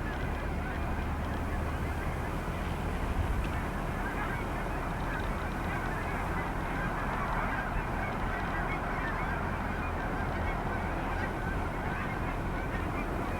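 A large flock of geese honking, many calls overlapping into a continuous din.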